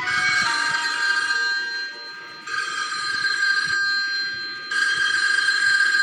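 An electric bell rings three times, each ring lasting about one to two seconds, with a rattling shimmer.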